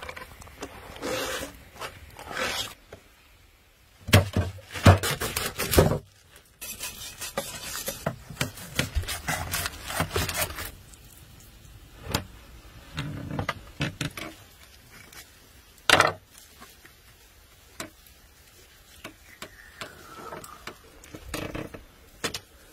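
Rubbing and scraping on a whole sturgeon as it is wiped down with a cloth and its bony scutes are scraped off with a knife, with several sharp knocks of the knife and fish on the table.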